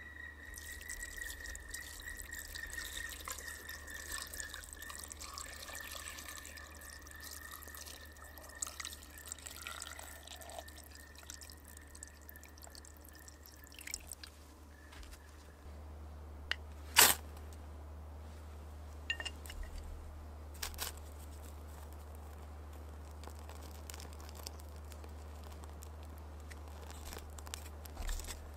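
Small wood fire burning in a stainless steel pot-stove, with quiet scattered crackles and drip-like ticks. A faint steady high whistle runs through the first half, and a single sharp click comes about 17 seconds in.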